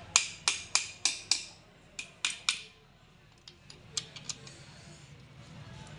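A metal tool striking metal in quick, sharp taps with a short ring, about three a second: eight in the first two and a half seconds, then four lighter taps about a second later.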